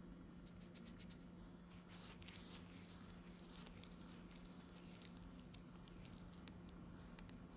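Faint rustling and scratching of a hand rubbing spices into the dimpled skin of raw duck breasts on a wooden cutting board, starting about two seconds in, with a few light ticks before it.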